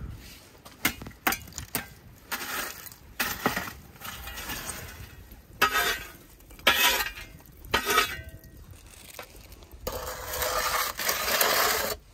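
Glowing charcoal embers scraped and pushed across the stone floor of a clay wood-fired oven with a wooden-handled metal scraper: a run of separate scrapes with the coals clinking and tinkling, and a longer scrape near the end.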